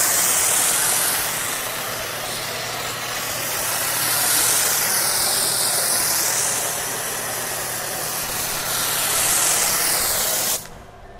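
Pressure washer spraying detergent through a foam lance: a loud, steady hiss of spray with the machine's motor humming underneath. The hiss shifts as the spray sweeps across the surfaces, then cuts off suddenly near the end.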